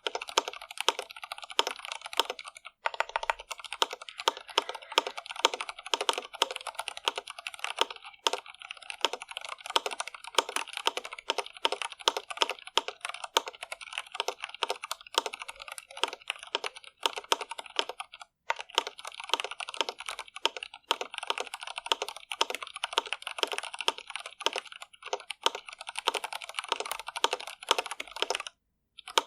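Continuous fast typing on an Iqunix L80 mechanical keyboard with stock Cherry MX Red linear switches, a rapid stream of key clacks with brief pauses about three seconds in, around the middle, and near the end.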